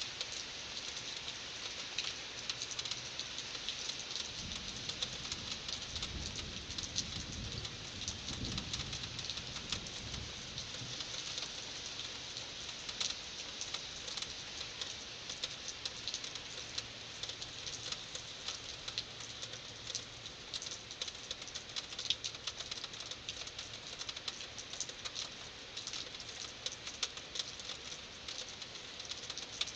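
Heavy rain pattering steadily, with a low rumble of thunder from about four to ten seconds in.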